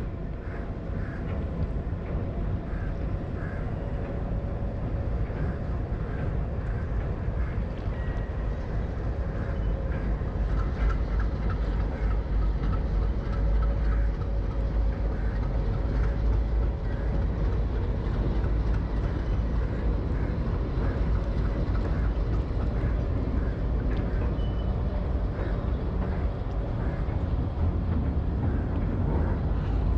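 Passenger express train running on rails at speed, heard from on board: a steady wheel-and-track rumble with faint repeated clicks, getting a little louder about ten seconds in.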